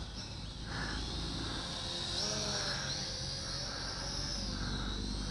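FQ777 FQ20W quadcopter's motors and propellers whining in flight, the pitch rising and falling as it maneuvers, with a low rumble of wind on the microphone.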